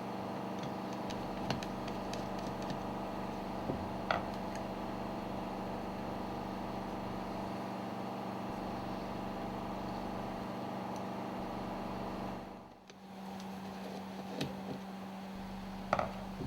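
Steady machinery hum with several steady tones, with a few light clicks and knocks from handling small parts. About 13 seconds in the hum dips briefly and comes back with a stronger low tone.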